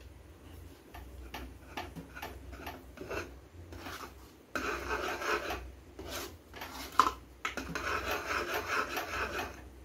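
Metal spoon stirring and scraping a thick, sticky rice-flour and jaggery batter in an iron pan, in repeated rasping strokes that scrape the bottom to keep it from sticking; the scraping gets denser and louder about halfway through.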